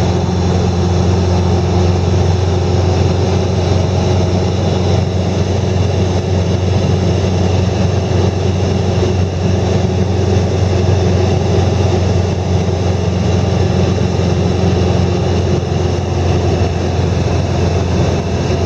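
An engine running steadily with a constant low hum, its pitch and level unchanging throughout.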